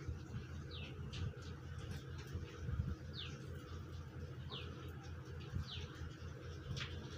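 Small birds chirping in short, high, falling chirps, roughly one every second or so, over a low steady hum.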